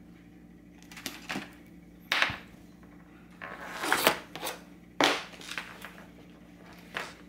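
Soft plastic IV fluid bag crinkling and a plastic 3-way stopcock and needle clicking as they are handled, in short separate bursts, the loudest about two, four and five seconds in.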